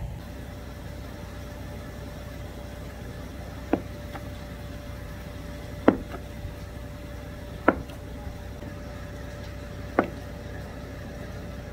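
Chef's knife slicing through a block of Spam and knocking down onto a plastic cutting board, one sharp knock about every two seconds, over a steady low hum.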